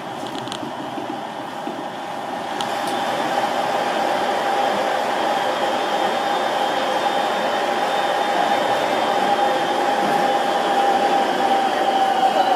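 Seibu 8500-series "Leo Liner" rubber-tyred guideway train running, heard from inside the car: a steady rushing of tyres on the track with a whine. It grows louder about two to three seconds in as the train runs into a tunnel, then holds steady.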